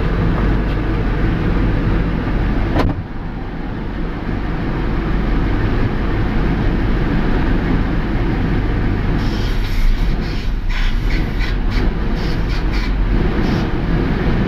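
Ford F-150 engine idling steadily with a vacuum hose pulled partly off, a vacuum leak that leans out the mixture. There is a sharp click about three seconds in, and a run of short scratchy noises from about nine to thirteen seconds.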